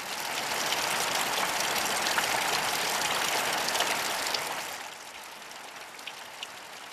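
Steady rain falling and dripping off a roof edge. It drops to a quieter level about five seconds in.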